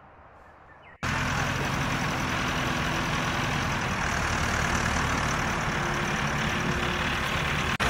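Farm tractor engine running steadily, starting abruptly about a second in after a quiet opening.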